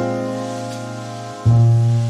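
Slow background piano music: held notes fade away, and a new low note is struck about a second and a half in.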